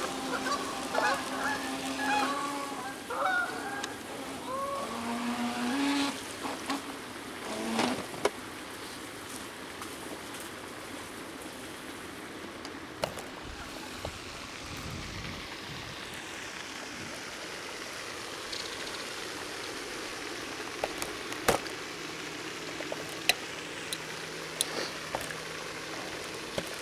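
Geese honking, many calls in quick succession over the first several seconds, then dying away to a steady background hiss broken by a few sharp clicks.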